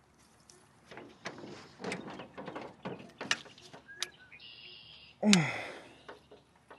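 Quick clicks, scrapes and knocks of hands and tackle working a hook out of a caught bass in a small boat. The loudest sound is a short one falling in pitch, just after five seconds in.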